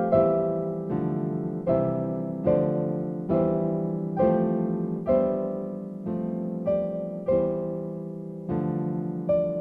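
Background music: a slow, gentle piano melody, single notes struck about once or twice a second, each fading away after it is struck.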